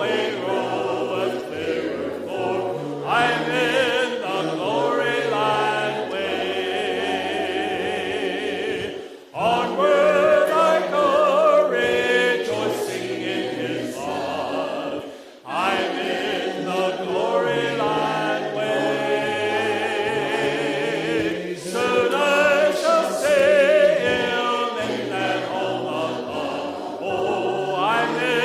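Worship singing: several voices singing together with vibrato over held low accompanying notes. The music drops away briefly twice, about nine and fifteen seconds in.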